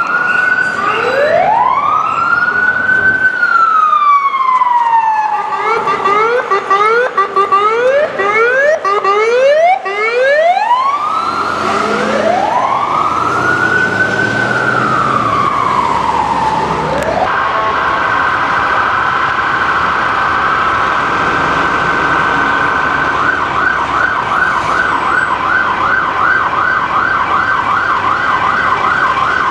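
Ambulance electronic siren cycling through its modes while responding: a slow wail rising and falling, a stretch of fast yelp chirps, the wail again, then a steady high tone that turns into a rapid warble in the last few seconds.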